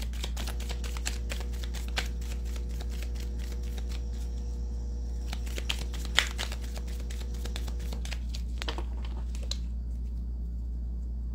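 A deck of oracle cards being shuffled by hand: a rapid run of light card clicks and riffles that stops about nine seconds in. A steady low hum runs underneath.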